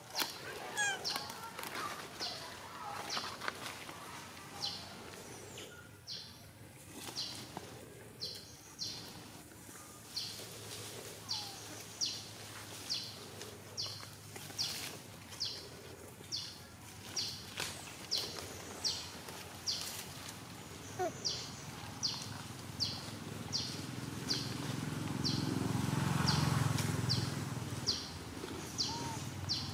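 Forest ambience: a short, high chirping call repeated steadily, about four times every three seconds. A low rumble swells in near the end.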